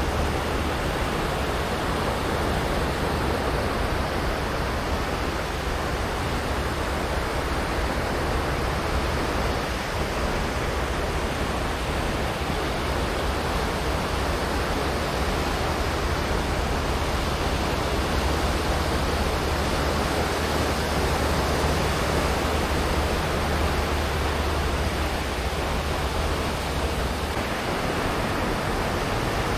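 Waves washing onto a sandy beach: a continuous, even surf noise with a steady low rumble underneath and no single standout breaker.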